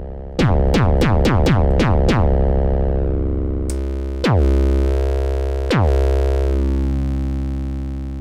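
Moog DFAM analog percussion synthesizer, its two VCOs under frequency modulation with hard sync off, playing percussive hits whose pitch swoops sharply downward at each strike. About six quick hits come in the first two seconds. Then a long sustained metallic tone starts, is retriggered twice and rings out with a slow decay.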